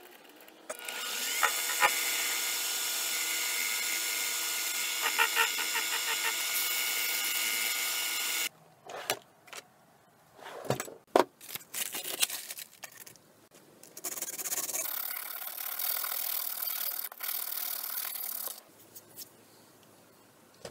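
Small 7x12 hobby metal lathe running steadily with a motor whine as it spins the bolt for cleanup of its threads. The run cuts off suddenly and a few knocks and tool clatters follow. A second steady run of about four seconds comes near the end.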